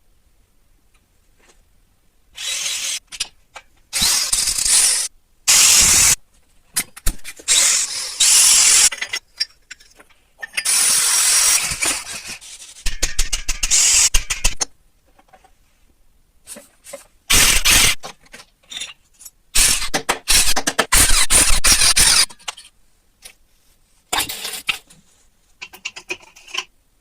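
Repeated bursts of harsh scraping or grinding work on a part, each starting and stopping abruptly and lasting from a fraction of a second to about two seconds, with short pauses between them.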